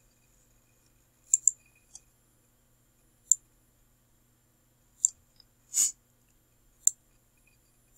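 Computer mouse clicking: about six single sharp clicks at irregular intervals, with one short breathy sound between the last two.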